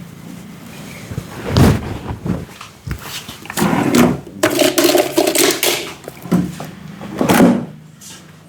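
A barber's hands rubbing and patting a customer's head and face during a massage, in uneven bursts of brushing noise about a second long, with a few short taps.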